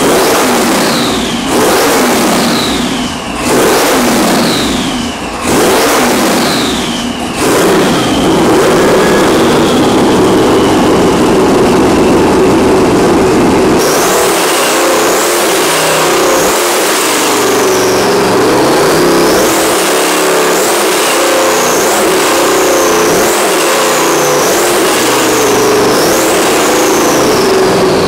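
Twin-turbo Ford 428 Windsor V8 on an engine dyno, revved in four or five sharp blips, each followed by a high whistle falling in pitch, then held at steady high revs. About halfway through the sound changes abruptly to steady running with a high whistle that rises and falls about once a second.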